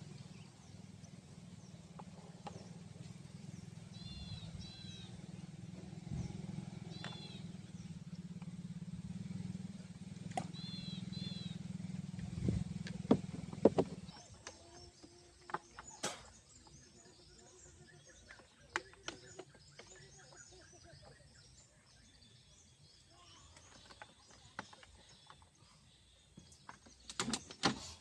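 Outdoor ambience: a low steady hum that stops about halfway through, groups of short arching chirps in the first half, then scattered sharp clicks and knocks.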